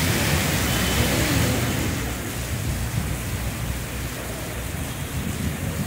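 Heavy downpour hissing steadily on the flooded street and pavement, with a low rumble of traffic driving through the wet road.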